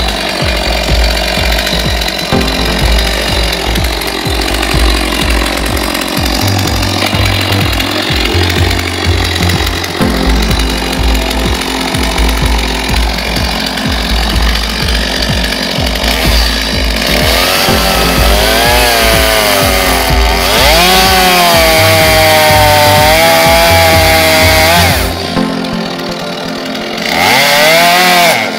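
Two-stroke chainsaw running at high revs and cutting into the trunk of a dead standing tree, its pitch wavering as the chain loads in the wood; the throttle eases off near the end, then revs up again. Background music with a steady bass plays beneath.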